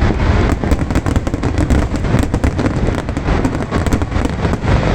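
Aerial fireworks going off in quick succession: dense crackling pops over a continuous low rumble of bursts.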